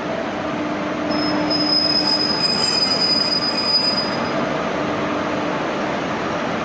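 Train at a railway station, its steel wheels squealing on the rails over a steady rumble. The high-pitched squeal starts about a second in and dies away after about three seconds.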